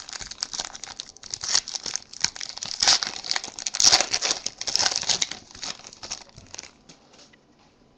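Foil wrapper of a Panini Select football card pack being torn open and crinkled by hand, a dense crackling that dies away about seven seconds in.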